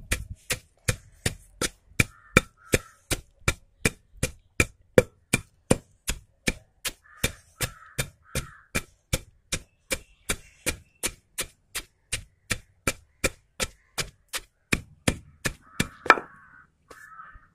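Pestle pounding roasted urad dal and sesame seeds in a black stone mortar (rolu): a steady run of thuds, about three a second, that stops near the end.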